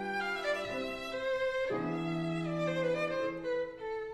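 Background music: a violin playing slow, held notes over a lower sustained string line.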